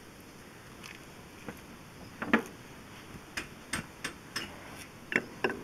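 Scattered light clicks and knocks of brake parts being handled, the loudest about two seconds in, with a cluster of quicker clicks in the last couple of seconds.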